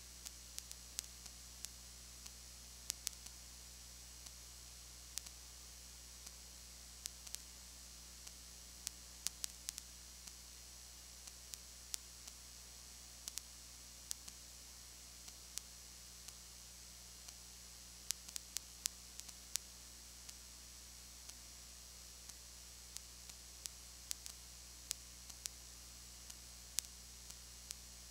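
Steady low electrical hum with a hiss, broken by irregular sharp clicks, sometimes several in a second: noise on an otherwise empty audio track, with no game or crowd sound audible.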